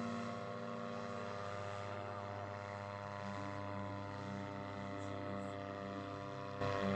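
Paramotor (powered paraglider) engine and propeller droning steadily in flight.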